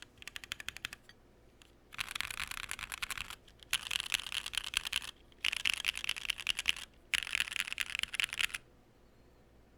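Bakeneko mechanical keyboard with Durock POM switches on an aluminium plate and PBT keycaps being typed on. A second of separate keystrokes is followed by four dense runs of rapid keystrokes, each about a second and a half long, and the typing stops about a second before the end.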